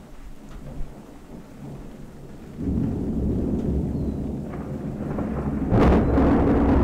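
Thunder from a thunderstorm: a low rumble starts suddenly about two and a half seconds in and keeps on, then a louder crash breaks in near the end.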